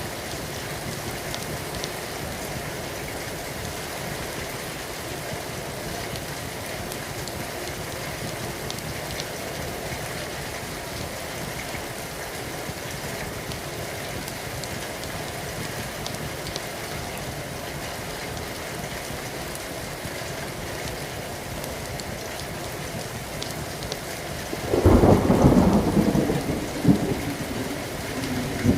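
Steady rain falling. Near the end a loud thunderclap breaks in and rumbles on for a few seconds with a second crack.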